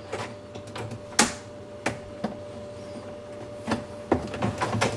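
Plastic clips on the rails of a Maytag bottom-freezer drawer being pried back and released, with sharp clicks and knocks at irregular intervals and a quick run of them near the end, over a steady faint hum.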